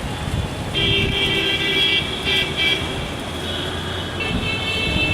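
Wind buffeting the microphone over traffic noise, with vehicle horns sounding: one long honk about a second in that breaks into short toots, then another from about four seconds in.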